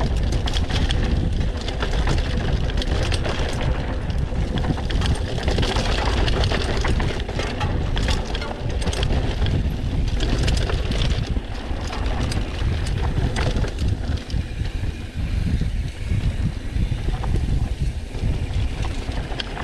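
Mountain bike riding fast down a rough dirt trail: heavy wind rumble on the microphone over tyre noise, with frequent clicks and rattles from the bike as it hits bumps.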